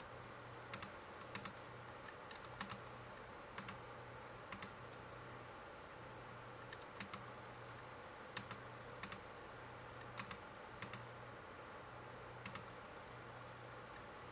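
Faint, irregular clicks from a laptop's input buttons, many in quick pairs, as numbers are clicked into an on-screen number pad, over a faint low hum.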